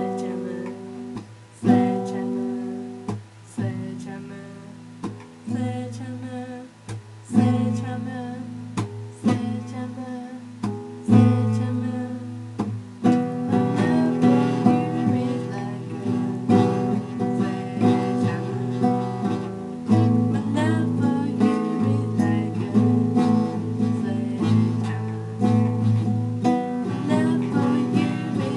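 Acoustic guitar strummed without words: separate chords struck and left to ring for about the first half, then steady, busier strumming from about halfway.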